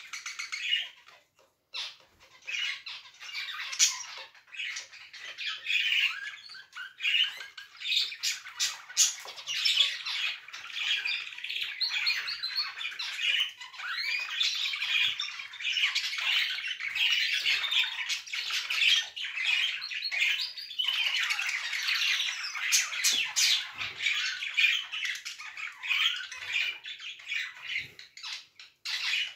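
Domestic canary singing a long, almost unbroken song of rapid trills, warbles and chirps, with a short pause about a second in and a few brief gaps near the end.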